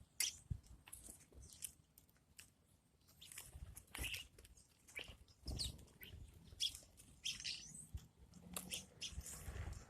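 Faint bird chirping: short, scattered calls, several a second at times, mixed with a few soft clicks and thumps.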